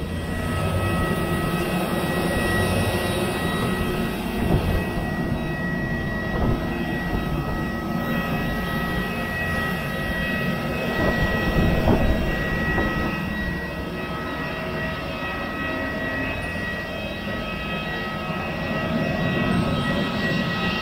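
Airbus A321neo jet airliner running steadily: a constant high whine over a low rumble, with a couple of brief knocks.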